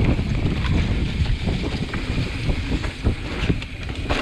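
Wind buffeting the microphone while moving, with many short knocks and rattles scattered through it.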